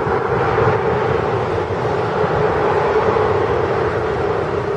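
Airbus A320neo's CFM LEAP-1A jet engines during the landing rollout: a steady loud rushing noise with a constant hum underneath.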